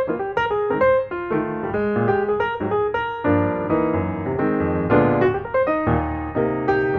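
Piano music: a run of struck notes and chords.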